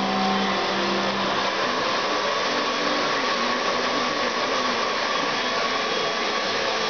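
Handheld hair dryer running steadily: an even rushing blow of air with a faint steady whine.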